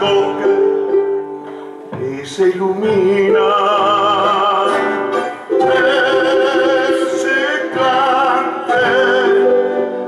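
Live Andean folk music: a classical guitar strummed under a male voice singing long held notes with vibrato, with a pan flute joining the melody.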